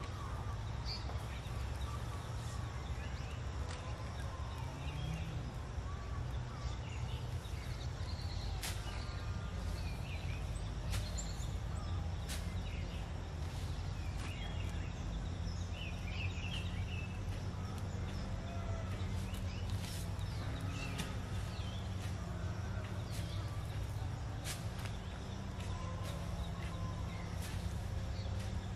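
Outdoor rural background: a steady low rumble with short bird chirps here and there and occasional sharp clicks.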